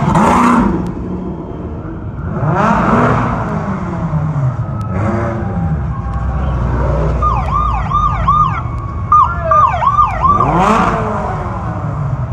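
Off-road race vehicles' engines revving up and back down as they pass one after another. About halfway through, a siren-like horn sounds in two quick runs of short whoops.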